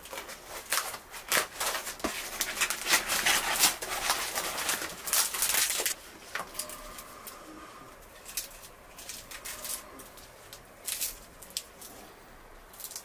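Dry lavash flatbread being handled and torn, a dense crackling rustle that breaks off about six seconds in. Quieter, scattered crackles follow as a piece is wrapped around fresh greens.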